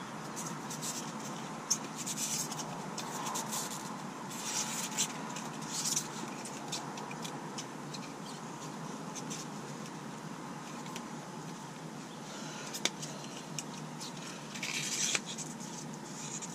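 Hands handling a plastic heater blower-motor fan assembly: scattered rustling, scraping and light plastic clicks over a faint steady hiss.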